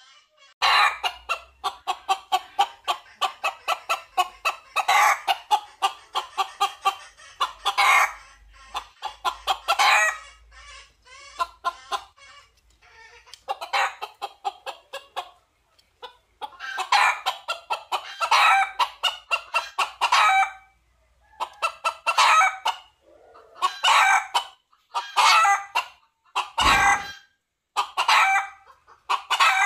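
Red junglefowl rooster calling: quick runs of sharp clucks and repeated crows, in phrases separated by short pauses. A brief low thump near the end.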